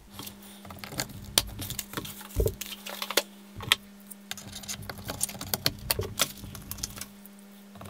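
Scattered small plastic clicks and taps of DDR4 RAM sticks being handled and pressed into the motherboard's memory slots, the slot latches snapping shut, over a faint steady low hum.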